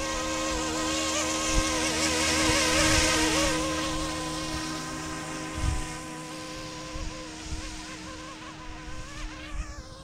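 YXZNRC F09-S electric RC helicopter hovering: a buzzing whine of motor and rotor blades whose pitch wavers, growing quieter after about four seconds. A brief low thump about halfway through.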